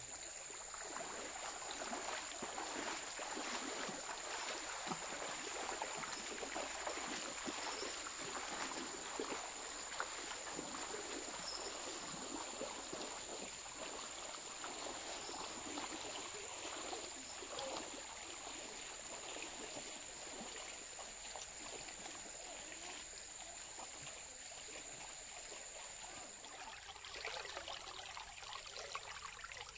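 Fast-flowing river water rushing steadily, the river swollen by a flash flood after heavy rain. A steady high whine sits over it and stops a few seconds before the end.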